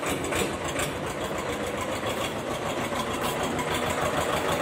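Tractor engine running steadily with a fast, even chugging.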